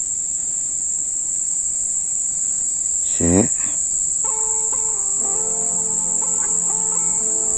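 Steady high-pitched buzz of insects. A bit after three seconds a short cry sweeps steeply down in pitch, and from about four seconds in a melody of held notes comes in.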